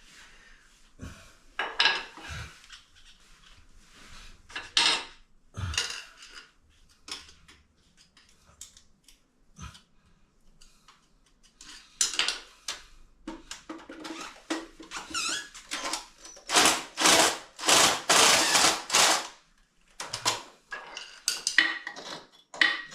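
Hammer striking a cold chisel to chip away the fixing around the base of a toilet pan: scattered metallic taps at first, then a quick run of strikes from about halfway through.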